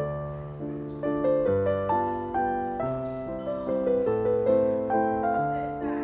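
Background music: a piano playing a melody over chords, a new note struck about every half second.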